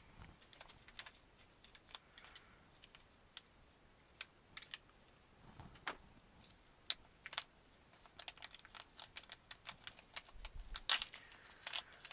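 Small metal machine screws and serrated nuts clicking and ticking as they are handled on a bench: scattered light clicks, coming thicker in the last few seconds.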